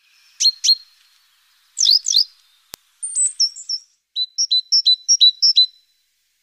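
Tits chirping and calling: a few quick high chirps, then a run of repeated two-note phrases in the second half. A faint single click comes near the middle.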